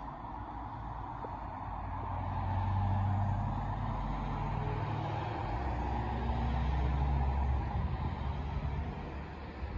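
A heavy vehicle's engine drone that swells after a couple of seconds, drops to a lower pitch about halfway through, then eases off near the end.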